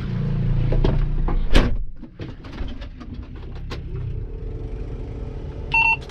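A vehicle engine runs steadily and then cuts off about two seconds in. Scattered clicks and knocks follow over a quieter hum, and a short electronic beep sounds near the end.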